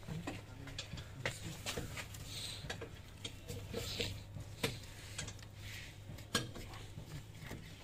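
Scattered light clicks and taps of a hand handling plastic parts in a car's engine bay, towards the end at the brake fluid reservoir cap, over a steady low hum.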